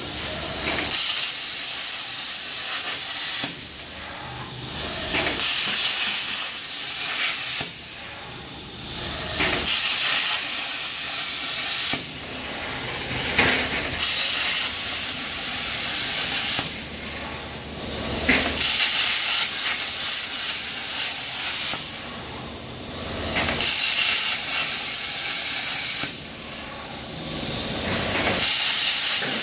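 Plasma arc of the STYLECNC STP1530R CNC plasma cutter hissing as it cuts steel plate, stopping short for a moment about every four to five seconds between cuts and then starting again.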